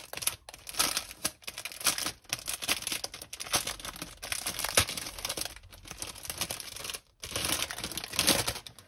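Plastic packaging crinkling and crackling as a diamond painting kit and its canvas are handled, in irregular rustles with brief pauses.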